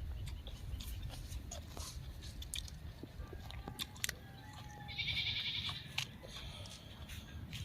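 Close-up chewing and crunching of raw vegetables, with short crisp crunches throughout. A high call of about a second comes in about five seconds in.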